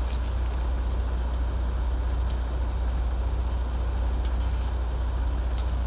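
Steady low rumble of an idling truck heard inside the cab, with faint small clicks of eating and a short hiss about four and a half seconds in.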